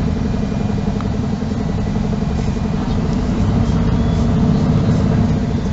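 Engine of a MAN NG 313 articulated low-floor bus running with a steady low, pulsing rumble, heard from aboard the bus; it grows a little louder about four seconds in.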